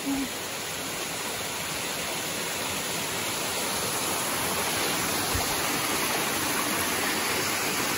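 Small mountain waterfall cascading down a rocky streambed: a steady rush of falling water.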